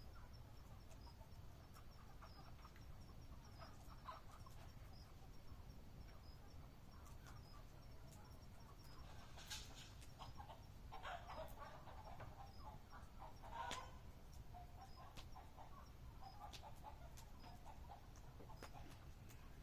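Faint crackling campfire: scattered sharp pops over a steady low rumble, with a faint high chirp repeating about twice a second.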